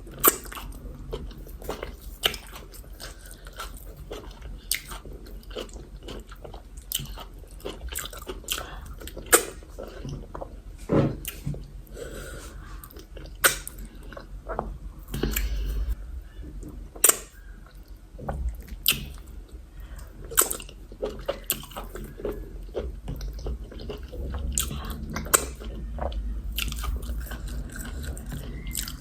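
Close-up chewing and lip smacking while eating yam fufu with egusi soup, with irregular wet smacks and clicks throughout.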